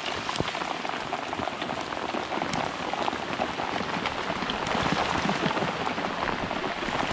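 Hard rain falling on lake water, a dense steady patter of countless drops.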